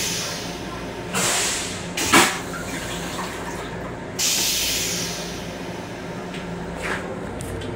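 M7 railcar toilet flushing: three hissing sprays of rinse water into the stainless steel bowl, each fading away, with a loud clunk about two seconds in. Under it runs the railcar's steady low rumble.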